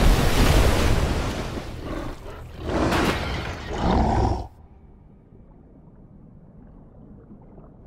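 Film sound effects of a giant gorilla fight: a heavy water crash and splash that fades over the first couple of seconds, then Kong roaring at about three and four seconds in. The sound cuts off suddenly to a faint, muffled underwater hush for the last three seconds.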